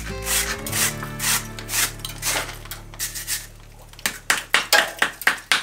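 Background music with slow sustained chords, over a hand brush scrubbing the joints of a granite stone wall in short strokes that quicken to three or four a second in the second half.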